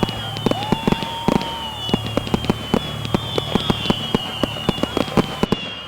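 Fireworks going off in quick succession: many sharp cracks and pops, with several high whistles that slide slightly downward, over a steady low hum.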